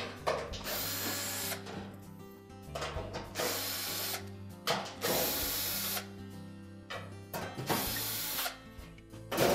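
Cordless drill/driver backing screws out of a range's sheet-metal back panel, in four short runs of about a second each with pauses between.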